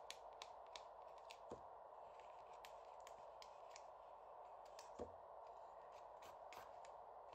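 Faint small clicks and ticks of metal tweezers picking the backing papers off foam adhesive dots on a paper card panel, over a faint steady room hiss. Two soft knocks, about a second and a half in and again about five seconds in.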